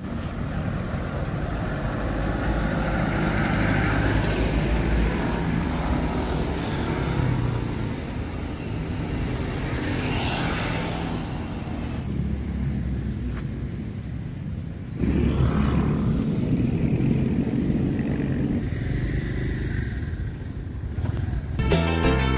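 Street traffic: cars and motorbikes running and passing, with one vehicle swelling past about ten seconds in. The background changes abruptly twice, and the last stretch is a heavier low rumble.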